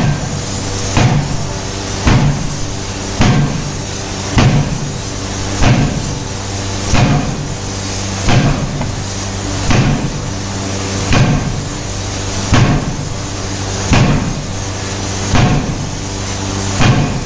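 Power forging hammer's ram striking red-hot metal in the dies in a steady rhythm, about one blow a second, the gaps slowly stretching to about one every second and a half, over the machine's steady hum.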